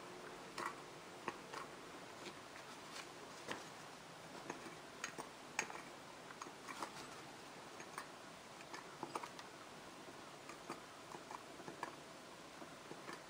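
Light metallic clicks and taps, irregular and faint, from the small parts of a partly dismantled Porsche 911SC ignition distributor being handled: the vacuum advance unit and its link knocking against the housing and breaker plate.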